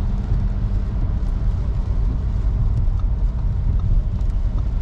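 Steady low rumble of road and engine noise inside a car cruising on a motorway.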